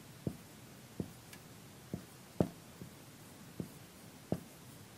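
Dry-erase marker writing on a whiteboard: faint, short strokes and taps of the tip, irregularly spaced at about one or two a second.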